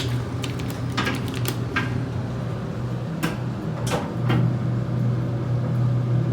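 Dover hydraulic elevator equipment giving a steady low hum, with a handful of sharp clicks and knocks scattered through it.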